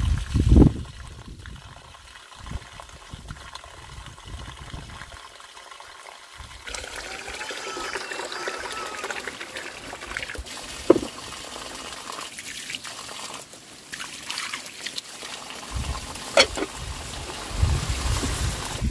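Water trickling and splashing steadily, with a few sharp knocks and clicks along the way.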